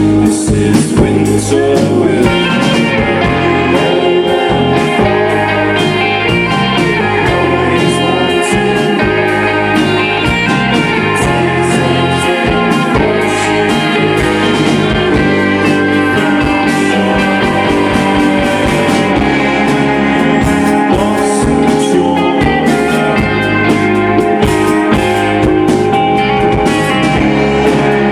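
Loud live rock music: a band with guitars playing continuously, recorded through a camcorder's microphone.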